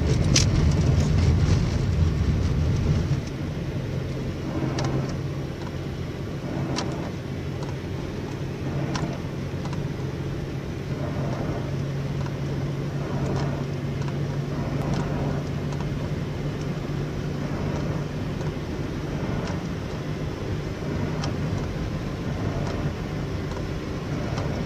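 Nissan Sentra driving, with a steady road and engine rumble that drops in level about three seconds in. Short clicks or knocks repeat about every two seconds. This is the noise the owner hears when turning right; the CV joint and wheel bearing are new and ruled out as its cause.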